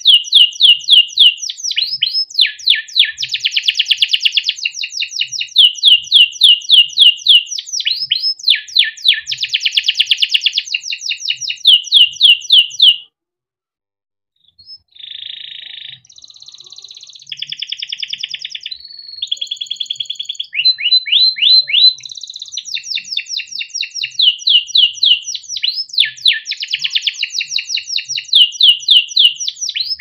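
Young male domestic canary singing a long song of fast rolling trills and rapidly repeated chirps. About halfway through it stops for a second or so, then comes back with softer, varied notes before the loud trills start again.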